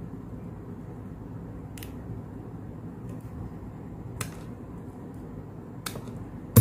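A few isolated sharp clicks as a nylon cable tie on a hand-wound copper-wire crossover coil is handled and snipped with small side cutters, over a low steady hum. A louder thump comes right at the end.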